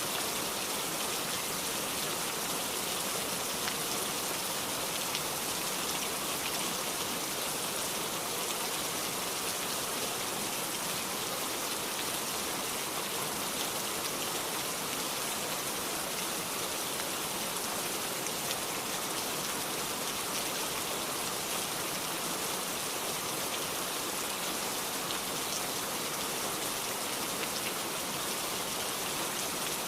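Steady heavy rain falling, a continuous even downpour with scattered individual drops ticking on a surface.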